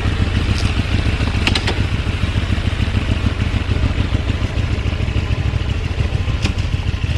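KR Motors Mirage 250DR (GV250DR) 250 cc V-twin motorcycle engine running at a steady idle just after starting, with a few light clicks, as the bike moves off slowly.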